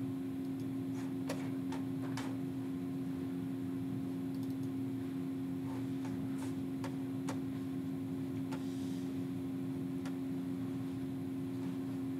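Steady room hum with a few sharp clicks scattered a second or more apart, from the laptop being worked while a file is searched for.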